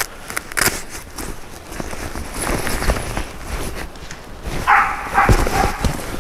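Footsteps rustling and snapping through dry brush and undergrowth, with a dog barking for about a second near the end.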